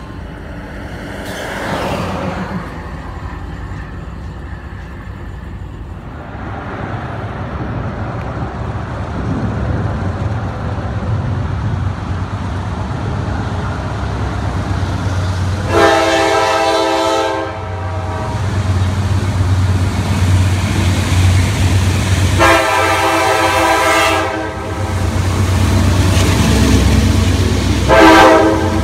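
GE AC4400CW diesel-electric freight locomotive approaching and passing close by, its engine rumble building. It sounds its multi-chime air horn in two long blasts and then a short one, the opening of the grade-crossing signal.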